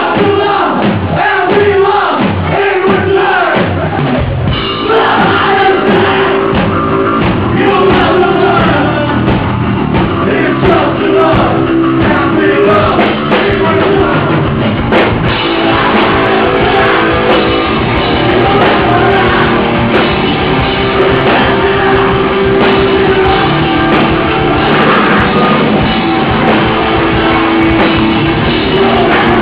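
Hardcore punk band playing live and loud: electric guitars, drum kit and vocals. The sound turns fuller and heavier about four seconds in, as the lowest notes of the band come in.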